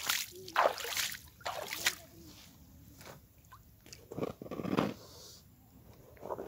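Water splashing and sloshing as clothes are hand-washed at a pond's edge: a run of short splashes in the first two seconds, and another sloshing burst about four to five seconds in.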